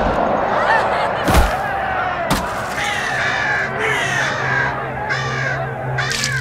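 A crowd shouting, with two sharp bangs in the first half. Then harsh calls repeat over a low steady hum.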